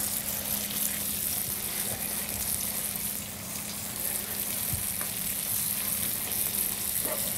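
Blackened fish fillet frying in butter in a skillet: a steady sizzle.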